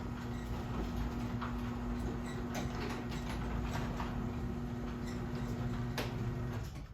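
Garage door opener motor running a door along its track, with a steady hum and scattered clicks, stopping near the end.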